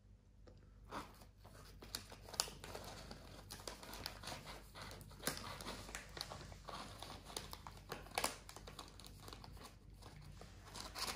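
Empty crisp packet crinkling and rustling as a cat noses its head inside it: an irregular crackle that starts about a second in, with sharper loud crinkles now and then.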